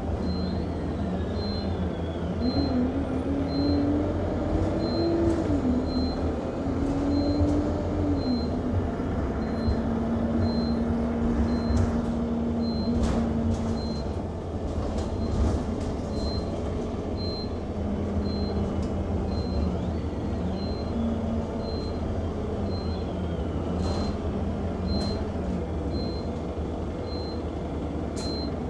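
Inside an Alexander Dennis Enviro200 MMC bus: a short high-pitched beep repeats about once a second without a break, over the bus engine running with its pitch rising and falling as the bus speeds up and slows. Occasional sharp rattles or clicks.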